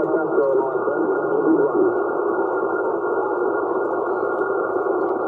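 Receiver audio from a Xiegu HF transceiver on lower sideband at 27.395 MHz, the 11-metre CB band: steady, narrow, tinny band hiss. Over the first two seconds it carries garbled, warbling sideband signals coming in on sporadic-E skip, and after that only the static remains.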